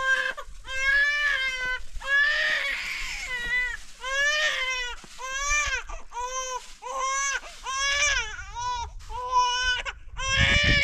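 Baby crying in a string of short, high-pitched wailing cries, about one a second.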